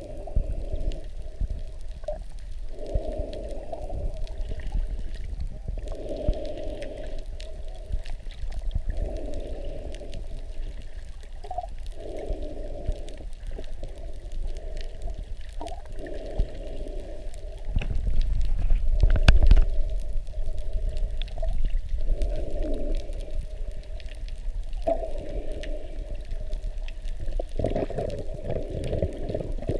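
Water heard underwater, muffled by a camera housing just below the surface: sloshing and gurgling that swells every few seconds, with a louder low rumble around the middle.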